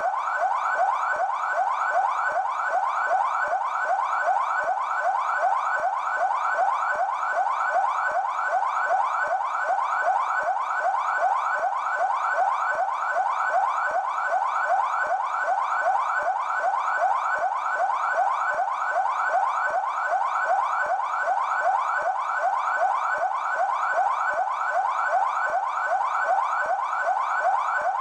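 São Paulo Military Police (PMESP) electronic siren sounding its yelp tone: quick rising sweeps, about three a second, repeating steadily without a break.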